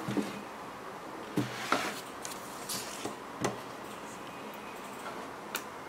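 A few soft knocks and rustles from a pair of knit sneakers being handled and moved about on their cardboard shoebox, over a steady faint room hiss.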